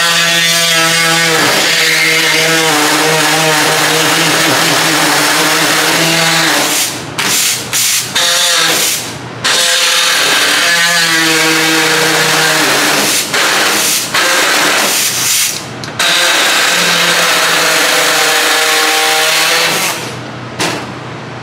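A power cutting tool running loud as it cuts out a sheet-metal body panel in a 1958 Oldsmobile 88. Its motor whine stops and restarts several times between cuts and dies away near the end.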